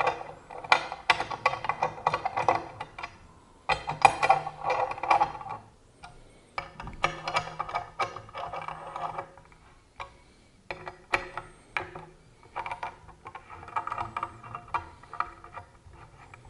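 Front-wing bolts being screwed by hand into a windsurf foil's aluminium fuselage with the small assembly tool: runs of quick metallic clicks and ticks with short pauses between, as the tool is turned and reset. The bolts are being done up only hand tight.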